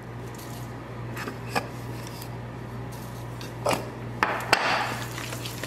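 A few light knocks of a wooden salt-and-pepper box and a spatula against a stainless steel mixing bowl, then about a second of scraping near the end as a spatula stirs yogurt and basil in the bowl. A steady low hum runs underneath.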